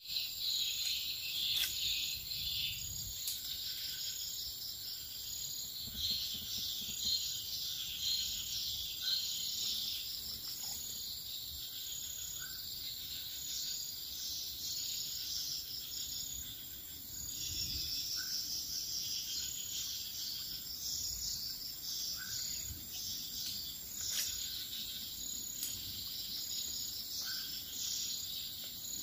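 A dense chorus of insects chirring and trilling at a high pitch, steady and pulsing throughout. Faint short calls sound lower down every few seconds, and there are a few sharp clicks.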